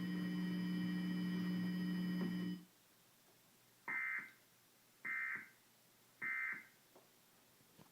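A steady electrical buzz with a thin high whine cuts off about two and a half seconds in. Then the Emergency Alert System end-of-message code sounds: three short bursts of data squawk about a second apart, marking the end of the alert.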